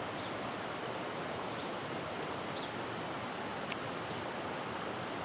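Creek water running steadily, with a single sharp click about three-quarters of the way in.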